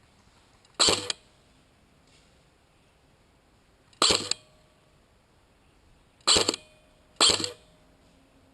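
ICS M4 airsoft electric gun (AEG) firing four short bursts, each a quick shot or two, about a second, four seconds, six seconds and seven seconds in.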